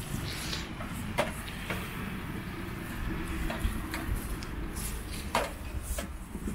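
Steel kebab skewers clicking and clinking against the metal charcoal grill as they are turned by hand, about half a dozen short sharp knocks over a low rumble.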